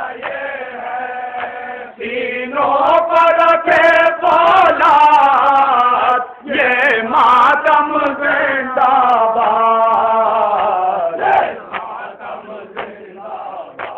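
A man chanting a Shia nauha (mourning lament) into a microphone over a loudspeaker system, in long, held, wavering notes. The chant breaks off briefly about six seconds in and turns softer after about eleven seconds.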